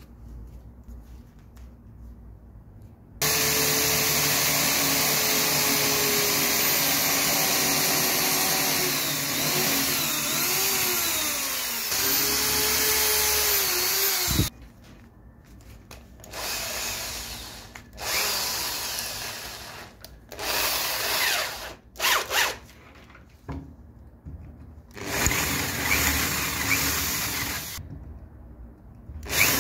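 Electric drill boring into a wooden lamp base with a twist bit. It starts about three seconds in and runs for about eleven seconds, its pitch dipping and rising toward the end, then runs in several short bursts with pauses between.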